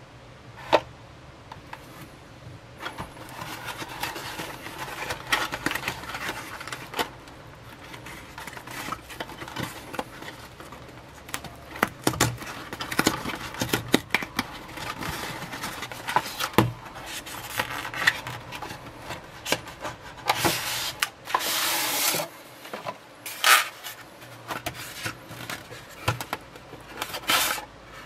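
Hands handling a cardboard toothbrush box: irregular rubbing and scraping of cardboard with scattered sharp taps and clicks, and a longer scrape about three quarters of the way through as the box is opened and its inner tray handled.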